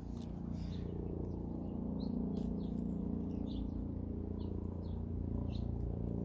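A small bird chirping in short, separate notes, about once or twice a second, over a steady low hum.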